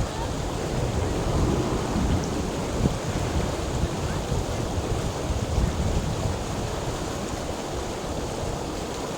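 Flowing water: a steady rushing noise, heaviest and most uneven in the low range.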